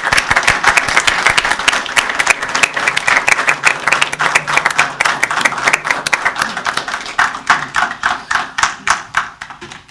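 Audience applauding: many people clapping at once, thinning to scattered claps near the end and then stopping.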